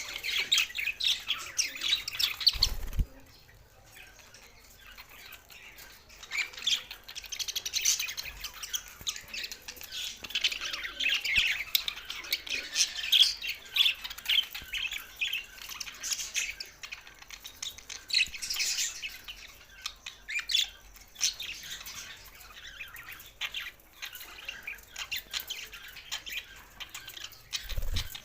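Budgerigars chattering and warbling in quick, high chirps and squawks, with a quieter lull about three seconds in before the chatter picks up again.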